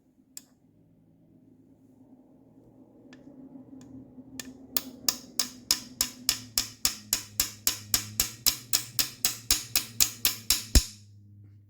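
Small brass hammer lightly tapping a steel ball down into an oil passage of an aluminum engine block to plug it for a DOD delete. A few single taps, then a quick even series of about four to five light taps a second for some six seconds, stopping shortly before the end.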